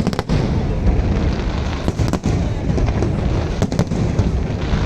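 Aerial fireworks display: dense, continuous booms and rumble from shells bursting overhead, with rapid sharp cracks coming in clusters at the start, about two seconds in, and again near four seconds.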